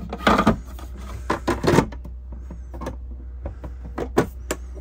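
Cover of an automatic transfer switch enclosure being fitted back on: a series of sharp clicks and knocks as it is set in place and pressed home, with a steady low hum underneath.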